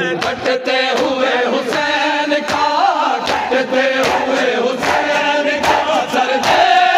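Crowd of men chanting a noha together, with the slap of hands beating on bare chests in matam at a steady beat, a little under a second apart.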